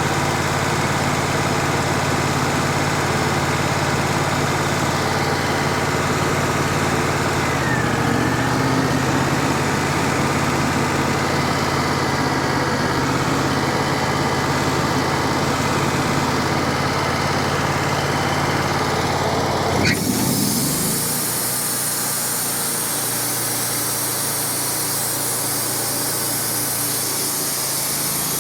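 Wood-Mizer LT35 sawmill engine running steadily. Its pitch dips slightly about a third of the way in, as if the engine takes on load. About two-thirds of the way in the sound changes abruptly.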